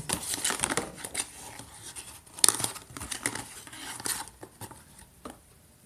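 A cardboard medicine box being opened and handled by hand: its flaps and grey paperboard insert rustle and scrape irregularly, with one sharp crack about two and a half seconds in. The handling dies down near the end.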